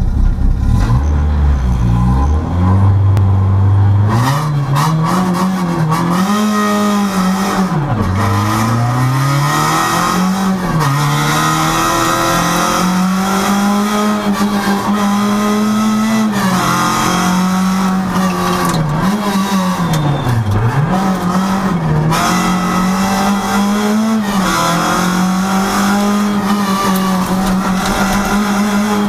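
Rally car engine heard from inside the cabin. It holds at low revs for about four seconds, then the car sets off hard, and the engine note climbs and drops again and again as the driver accelerates and lifts off.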